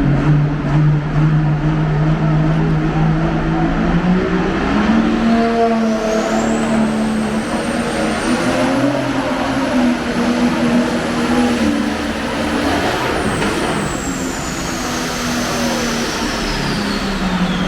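Competition pulling tractor's engine running hard under load during a pull, its note rising a few seconds in. A high whine climbs over several seconds, holds, then falls away near the end.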